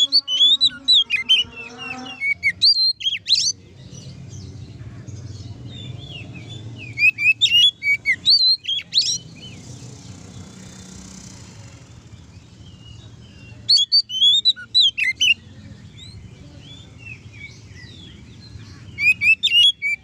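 Oriental magpie-robin (kacer) singing loud, clear whistled phrases of quick sweeping notes, in four bursts separated by pauses of a few seconds.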